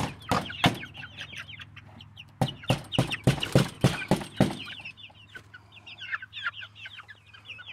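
Chickens clucking and peeping in short, quick calls, with bursts of sharp clattering near the start and again from about two and a half to four and a half seconds in.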